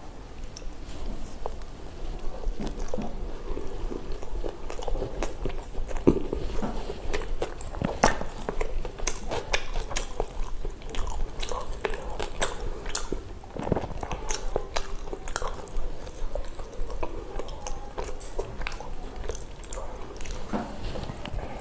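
A person eating pav bhaji close to the microphone, biting and chewing bread rolls with vegetable mash, with many irregular sharp mouth clicks.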